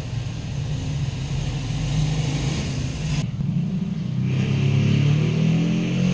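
A motor vehicle engine running close by, its pitch rising from about four seconds in as it speeds up.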